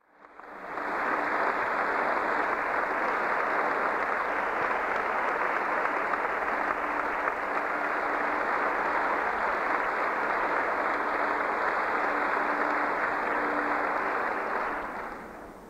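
Concert audience applauding steadily, swelling in over the first second and dying away near the end.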